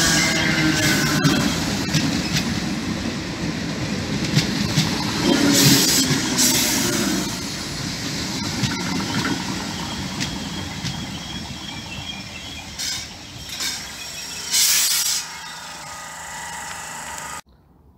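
DART electric commuter train moving along the platform: wheels rumbling on the rails, with a faint motor whine at first and short hissing squeals from the wheels. The sound fades gradually and cuts off suddenly near the end.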